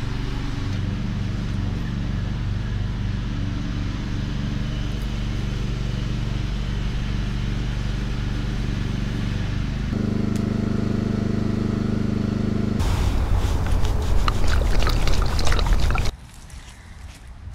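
A motor running steadily with a low hum, its pitch changing about ten seconds in. Then a few seconds of rustling and clicking handling noise that cuts off suddenly, leaving quieter outdoor background.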